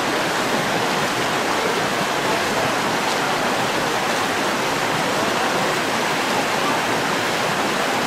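Stream of water rushing steadily, an even, unbroken wash of water noise.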